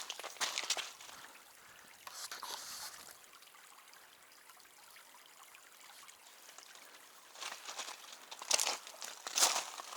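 Footsteps crunching on the gravel and rocks of a creek bed, in uneven steps that pause for a few seconds in the middle and start again near the end.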